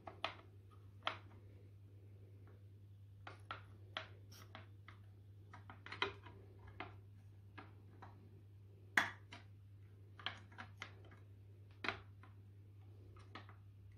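Plastic sections of a Kinetico water softener valve knocking and clicking as the stacked assembly is shaken and jiggled by hand to seat its control valves. The light clicks come irregularly, the sharpest about nine seconds in, over a faint low hum.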